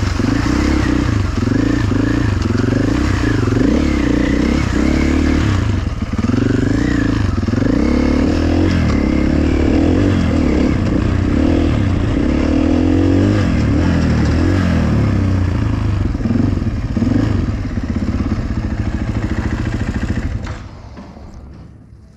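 Dirt bike engine revving up and down as it is ridden over a rough trail, with clatter from the bike. About two seconds before the end the engine drops away, leaving it much quieter as the bike comes to a stop.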